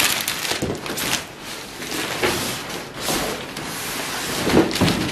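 Thin plastic wrapping around a large flat-screen TV rustling and crinkling as the TV is lifted out of its cardboard box, with a few louder bumps near the end.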